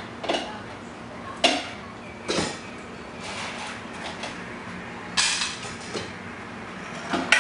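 Dog food bowls and utensils clattering as they are handled at a counter: about six separate clinks and knocks, a second or so apart.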